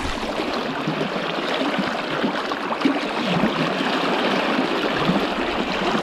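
River current rushing and splashing close around a wader, a steady, unbroken water noise.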